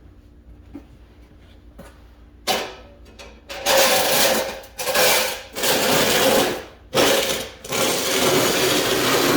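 All-metal snow shovel scraping across the driveway as snow is pushed off, in a run of about five long, loud scrapes starting about two and a half seconds in.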